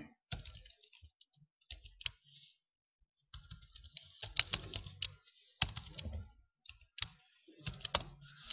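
Typing on a computer keyboard: a run of irregular keystroke clicks, with a pause of about a second around three seconds in.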